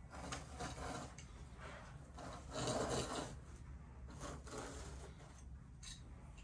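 Irregular rubbing and scraping of rebond carpet pad being worked by hand along the wall edge, loudest near the middle.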